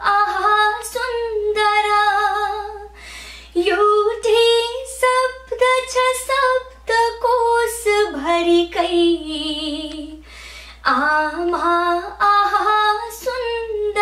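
A woman singing a slow Nepali song in praise of mother, long held notes with vibrato in phrases separated by short pauses.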